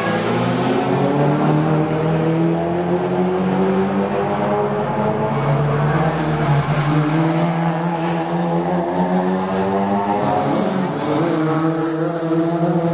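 Engines of small four-cylinder touring race cars (Toyota Vios and Honda Jazz) running hard one after another through a corner, each engine note rising as the car accelerates out.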